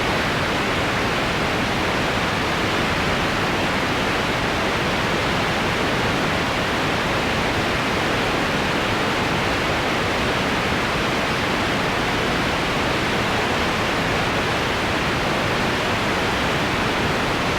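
Generated white noise sound effect: a steady, unchanging hiss at a constant level.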